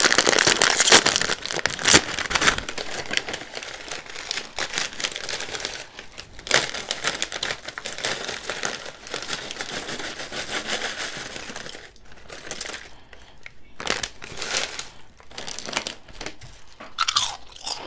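Plastic food packaging being handled, crinkling and rustling with many sharp crackles. It is nearly continuous for about the first twelve seconds, then comes in a few shorter spurts.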